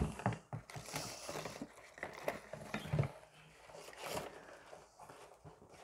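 Rustling and light clicks of packaging and cosmetic products being handled and picked out of a box.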